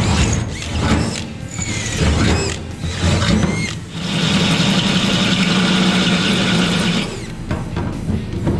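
Cordless drill working through sheet-metal firewall: short trigger bursts as a twist bit drills a pilot hole, the pitch rising and falling. About four seconds in, a hole saw cuts steadily for about three seconds, then stops suddenly.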